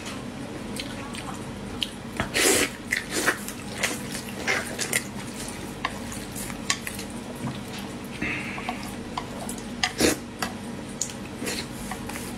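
Eating sounds: utensils clicking and knocking irregularly against dishes, with a few louder clatters.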